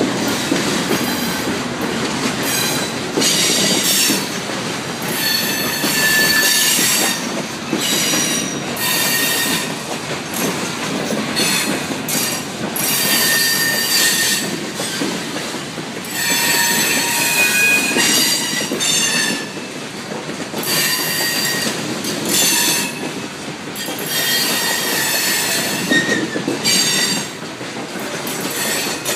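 A loaded coal train's hopper cars rolling past at close range. Their steel wheels squeal high-pitched again and again over a steady rumble and clatter of wheels on the rails.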